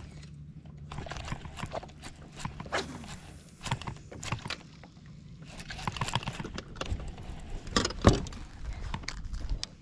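Irregular clicks and knocks of fishing gear being handled and feet moving on a boat's carpeted deck, with one sharp knock about eight seconds in, over a steady low hum.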